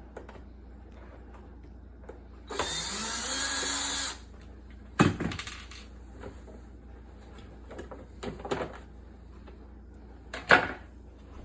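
A power drill/driver runs once for about a second and a half, its motor winding up in pitch as it starts, while unscrewing the dishwasher's bottom panel. Two sharp knocks follow, a couple of seconds later and near the end.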